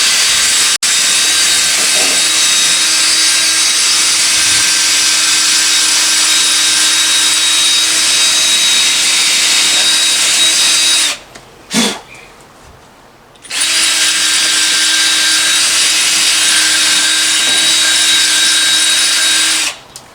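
Power drill with a masonry bit boring into brick mortar to widen an anchor hole. The motor runs steadily for about eleven seconds, stops for about two seconds with a small knock, then drills again for about six seconds.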